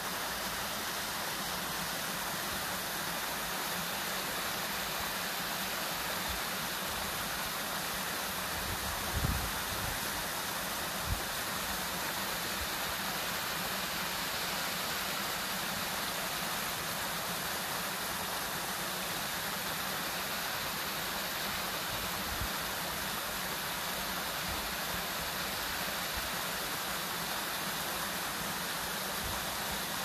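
Steady rushing of a rocky mountain stream, an even hiss throughout, with a brief low thump about nine seconds in and another about two seconds later.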